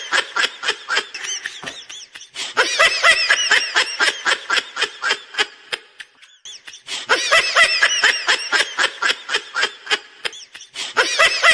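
High-pitched laughing sound effect: rapid bursts of laughter that break off and start again about three times in the same pattern, like one looped laugh clip.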